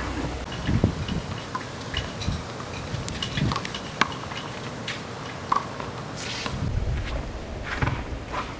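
A small rubber ball being slapped by hand against a brick wall and bouncing on asphalt in a game of Chinese handball: a series of sharp, irregular knocks, with sneakers scuffing and squeaking on the pavement between them.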